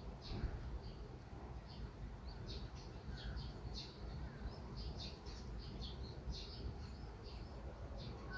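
Small birds chirping: a run of short, high chirps, one or two a second, over a steady low rumble of background noise.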